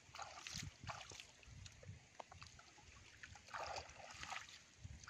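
Hands splashing and stirring in shallow water at a grassy edge, in short irregular bursts.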